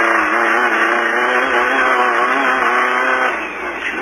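Engine of a Beetle-based off-road race car running hard under load, its pitch wavering up and down, then easing off briefly near the end.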